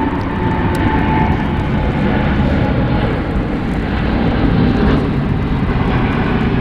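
Boeing 777 freighter's twin GE90 turbofan engines at take-off power: a loud, steady jet rumble, heaviest in the low range. A faint high whine fades out about a second in.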